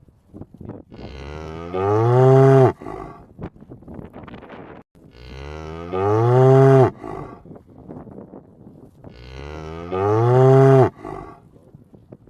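A cow mooing three times, about four seconds apart. Each moo is loud, lasts about a second, and drops in pitch at the end.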